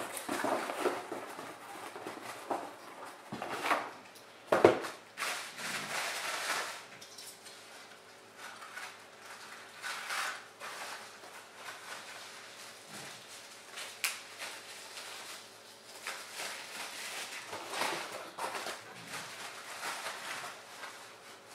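Cardboard box flaps being handled and rustling, then artificial Christmas tree branches rustling as ornaments are taken off. A sharp knock about four and a half seconds in is the loudest sound, with a smaller click later.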